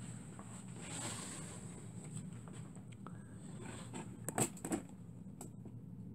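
Handling noise: a soft rustle, then two sharp knocks about a third of a second apart, over a steady low hum.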